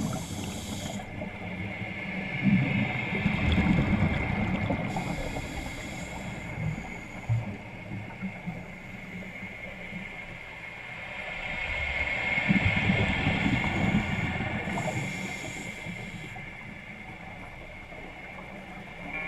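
Scuba diver breathing through a regulator underwater: two slow breaths, each a long rumble of exhaled bubbles followed by the short hiss of an inhale, over a steady high tone.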